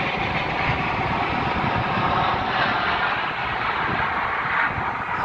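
Jet engines of a low-flying C-17 Globemaster III military transport passing overhead: a loud, steady rushing jet noise.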